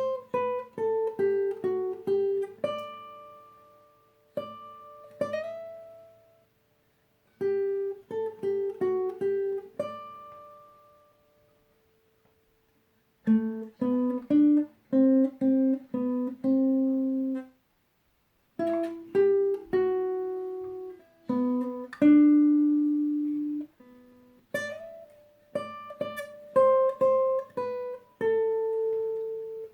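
Acoustic guitar playing a slow melody of single plucked notes that ring and fade, in short phrases with brief pauses between them.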